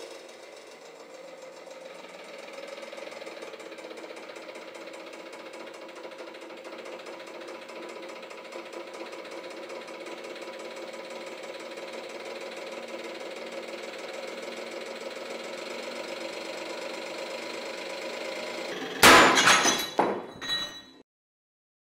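Hydraulic press running steadily as it pulls a BMW M5 connecting rod in tension, the hum slowly getting a little louder as the load builds. About nineteen seconds in, the rod snaps with a loud sharp crack at about 12,070 kg, followed by a few clattering knocks as the broken pieces and shackles fall.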